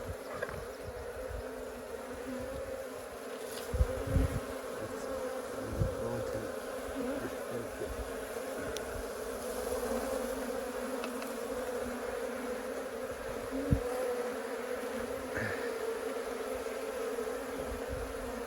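Honeybees buzzing steadily around an opened hive, with a few soft low thumps from handling the hive about 4, 6 and 14 seconds in.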